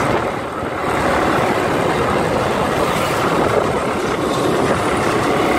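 Steady rush of wind and road noise from a motorcycle on the move, holding an even level throughout.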